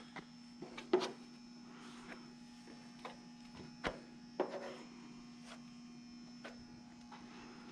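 Scattered light clicks and soft scrapes of a spreader working body filler onto a truck body panel, over a steady electrical hum.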